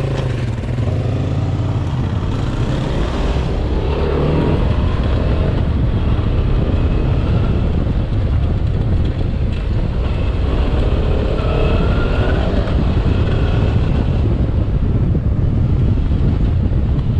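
Dual-sport motorcycle engine running while riding off-road, its revs rising and falling a few times over a steady low rumble.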